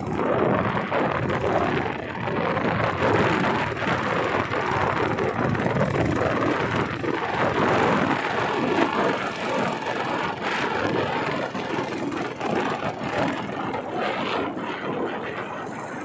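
A vehicle driving along a road: a steady rushing drone of engine and moving air, wavering a little in loudness.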